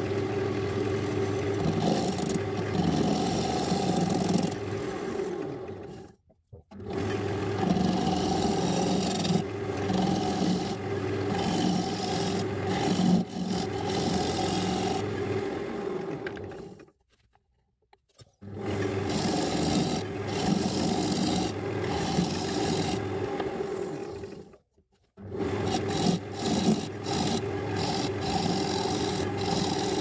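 Wood lathe running with the spinning paduk blank being worked, a steady motor hum under a rasping, rubbing noise of abrasive or tool against the wood. The sound stops briefly three times.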